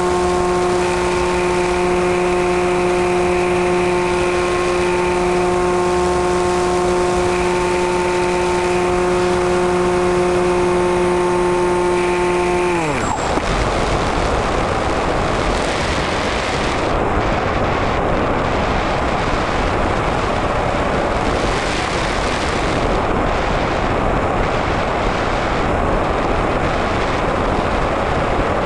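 Easy Star 2 RC motor glider's electric motor and pusher propeller running at a steady pitched whine, heard from the plane's onboard camera. About thirteen seconds in, the motor is cut and its pitch falls away within a second, leaving the rush of air over the gliding plane.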